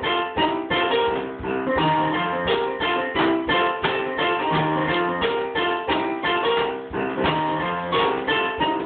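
Blues boogie played on an electronic keyboard: a repeating riff over a low bass figure that comes round about every two and a half to three seconds.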